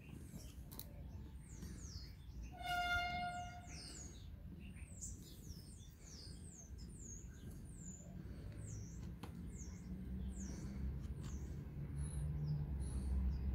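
Small birds chirping, a steady run of quick, high, sweeping notes repeated over and over. About three seconds in comes a short, steady pitched call, and a low rumble builds near the end.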